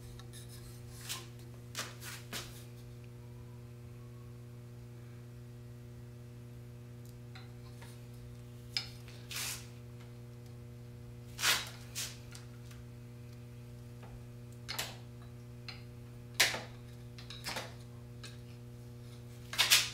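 A steady low electrical hum under a handful of short clicks and brief rubbing, sliding sounds a few seconds apart, as a mountain-bike suspension fork's lower legs are handled and slid onto the greased stanchions.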